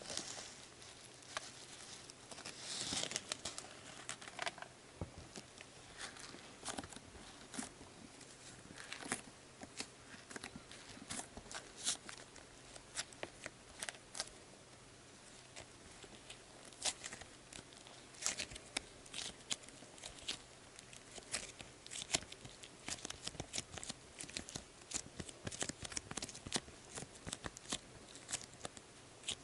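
A plastic bag of foam beads rustling as the beads are poured out, with a denser patch of crinkling about two to four seconds in. Then soft slime is squeezed and kneaded by hand, giving many quiet, scattered sticky clicks and crackles.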